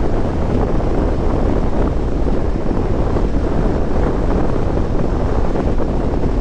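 Steady wind noise on a helmet-mounted camera microphone while riding a BMW G650 GS motorcycle at highway speed, with the bike's running engine and road noise underneath.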